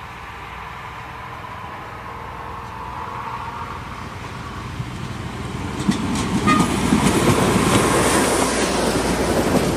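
Yellow on-track railway maintenance machine approaching and passing close by, its diesel engine growing steadily louder. From about six seconds in, its wheels rumble and knock over the rails as it goes past.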